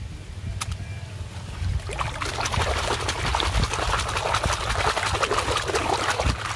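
Water splashing and sloshing in a plastic basin as a hand scrubs a muddy toy car under the surface. The splashing starts about two seconds in and goes on vigorously.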